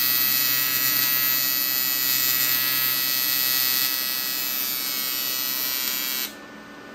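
AC TIG welding arc from an Everlast 325 EXT welder on a cast aluminum oil pan, giving a steady high-pitched buzz. It cuts off suddenly about six seconds in as the arc is broken.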